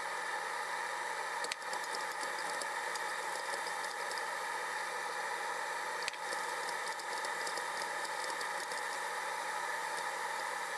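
Vegetables frying in butter in a frying pan: a steady sizzle with a few light knocks of a wooden spoon stirring them.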